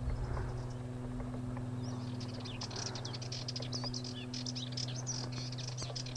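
Sardinian warbler singing: a fast jumble of short, high warbling notes that starts about two seconds in and thins out near the end, over a steady low hum.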